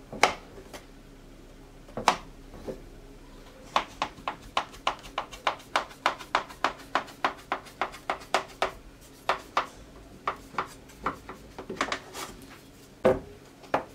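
Kitchen knife cutting through layered baklava dough in an aluminium baking tray, the blade clicking on the tray bottom with each short stroke: a couple of single clicks, then a quick even run of about three a second.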